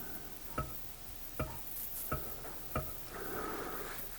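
Four sharp metallic clicks, about one every three-quarters of a second, then a soft rustle: the Briggs & Stratton engine's valve being pressed open by hand and snapping back onto its seat. The valve is sticky and may not be closing fully.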